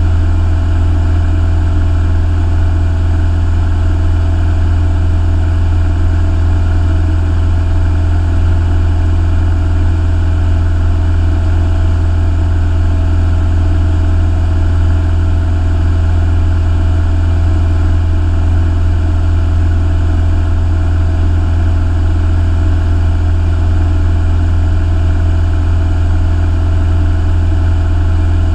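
Piston engine and propeller of a single-engine light aircraft running steadily in cruise flight, heard inside the cabin as an even, deep hum.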